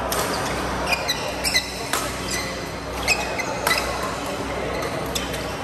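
Badminton rally: rackets striking the shuttlecock in a string of sharp hits, with court shoes squeaking on the floor between them.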